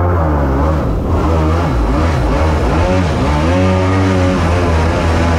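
Mini jet boat's engine revving, its pitch rising and falling several times over a steady low drone.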